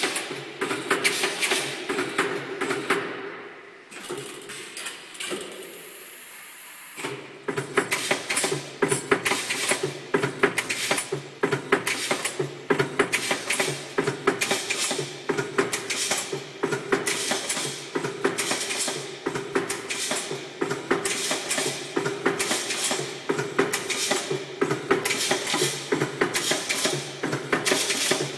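Automated ball-bearing insertion machine running, a fast, continuous metallic clatter and ticking of steel balls and pneumatic parts over a steady mechanical hum. It drops away for a few seconds about four seconds in, then resumes.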